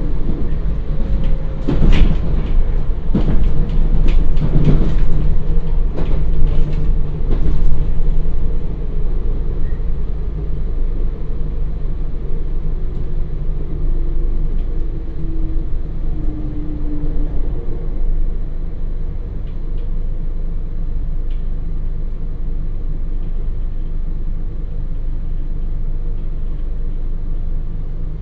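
Inside the motor car of a JR Hokkaido 721 series AC electric train slowing down under braking: a loud, steady 50 Hz buzz, which the uploader takes for transformer hum, over the running rumble. Sharp knocks and rattles come through the first eight seconds, after which the sound runs smoother and a little quieter as the train slows.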